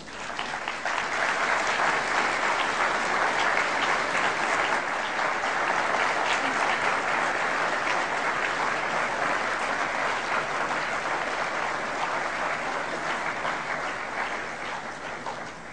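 Audience applauding, a dense patter of many hands clapping that builds within the first second, holds steady and tapers off near the end.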